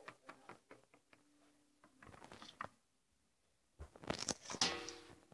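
Small plastic toy figurines and toy furniture being handled and set down on a table: a run of light clicks and taps, then a louder burst of handling noise about four seconds in.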